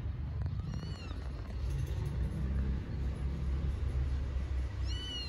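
Kitten meowing twice, short high-pitched mews that rise and fall, one about a second in and one near the end, over a low steady rumble.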